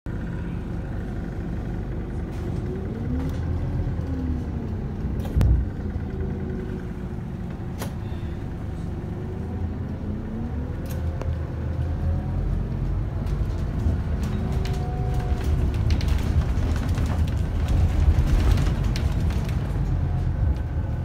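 Scania K280UB Citywide LE bus heard from inside the passenger cabin: the diesel engine and drivetrain run with a steady low rumble, their pitch rising and falling again and again as the bus accelerates and changes gear. A single thump comes about five seconds in.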